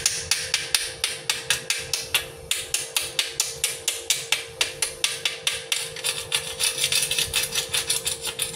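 Chipping hammer striking fresh weld beads on a square steel tube in quick light metallic taps, about five a second, knocking off the slag to test the welds.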